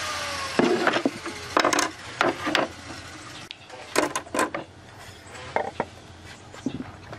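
Wooden boards and metal pipe clamps knocking and clattering against a wooden table top as a clamped glued-up panel is set down and a loose board is laid on it and shifted, a string of separate knocks with the loudest about half a second in.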